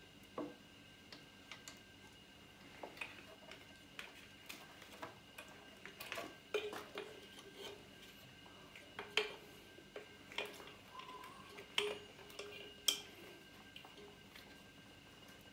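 Irregular light clicks and knocks as a motorcycle radiator is handled and fitted into the frame, its hard parts bumping and clicking against the bike.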